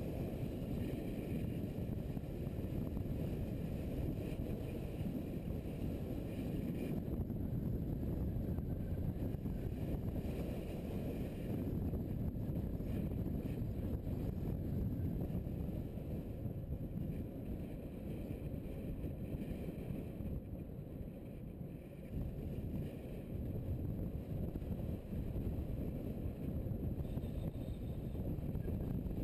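Steady low wind rumble on a camera mounted on a moving motorcycle, mixed with the bike's running and road noise.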